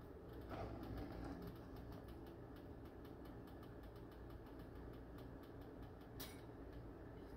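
Scrambled eggs cooking in butter in a nonstick frying pan: a faint sizzle with irregular small crackling pops, one sharper pop about six seconds in.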